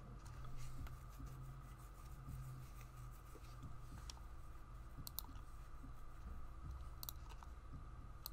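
Computer mouse clicking a few times, mostly in quick pairs like double-clicks, in the second half, over a faint steady hum.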